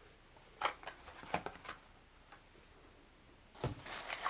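A few light plastic clicks and taps as a clamshell hook package is handled and set down on a table, then, about three and a half seconds in, a plastic shopping bag rustling as a hand reaches into it.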